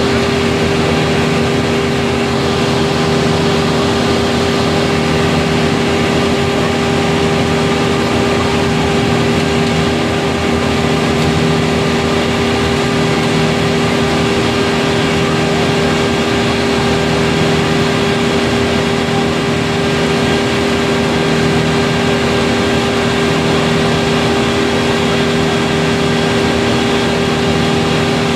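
A heavy engine running steadily at constant speed. Its low hum swells and fades about every two seconds.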